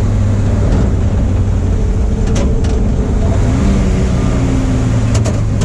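1953 Studebaker 3/4-ton pickup's six-cylinder engine running with a steady low drone as the truck drives along, heard from inside the cab. A couple of light clicks sound partway through.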